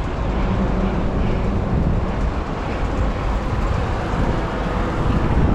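Strong wind buffeting the microphone of a moving bike rider: a loud, steady, low rumble.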